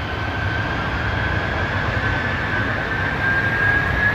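Airbus Beluga's twin General Electric CF6 turbofan engines running up for the takeoff roll: a steady low rumble under a thin whine that rises slowly in pitch as the engines spool up.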